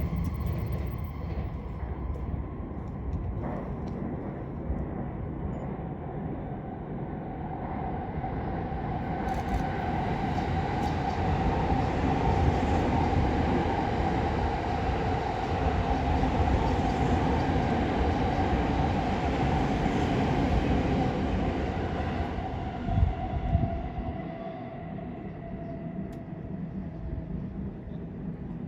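A train passing over the tracks. The noise builds for several seconds, stays loud through the middle, then fades, with a steady whine that drops slightly in pitch as the train moves away.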